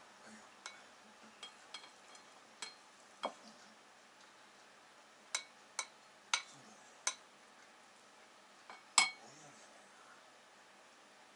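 Plastic rice paddle knocking and scraping against a porcelain rice bowl and the pot while bamboo-shoot rice is served: a dozen or so irregular sharp clinks, each with a brief ring, the loudest about nine seconds in.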